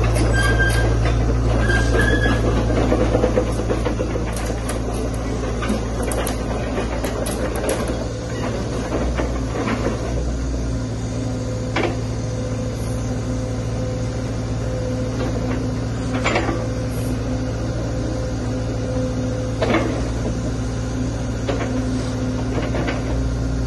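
Sany mini excavator's diesel engine running steadily with a hum from the hydraulics as the boom, arm and bucket move, and a few sharp metal clanks.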